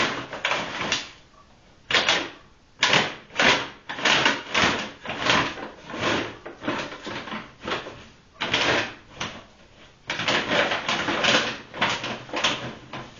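A white shopping bag rustling and crinkling in irregular bursts as a Norwegian Lundehund roots inside it with its head, digging for a hidden chew treat, with a few short pauses.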